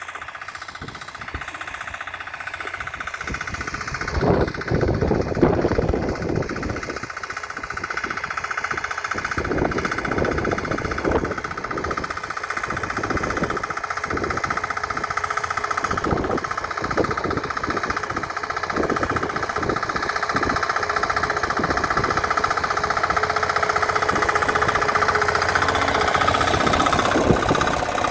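Walk-behind tractor engine running steadily as it pulls a ridging plough through tilled soil, growing louder as the machine comes closer, with uneven thumps through the middle of the pass.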